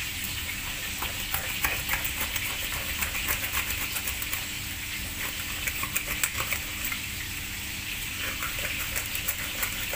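Fish shallow-frying in hot oil in a pan: a steady sizzle with frequent crackling pops.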